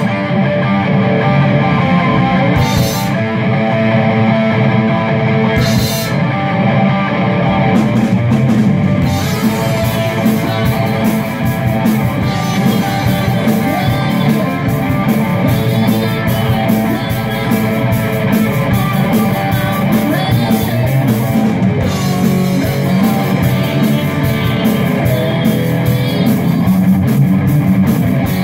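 Live rock band playing loudly: distorted electric guitars over a drum kit. Sharp cymbal-like hits come about every three seconds over the first several seconds, then the drumming settles into a busier steady beat.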